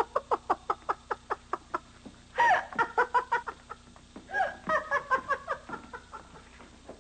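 Villainous laughter in rapid 'ha-ha-ha' bursts, in three bouts that die away near the end.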